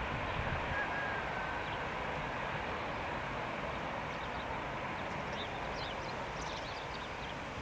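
Airbus A319 jet engines heard from a distance, a steady rushing noise that slowly fades, with faint high chirps in the second half.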